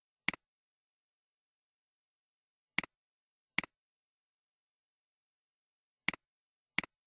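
Five computer mouse clicks at uneven intervals, each a sharp click with a softer one just after it, in otherwise dead silence.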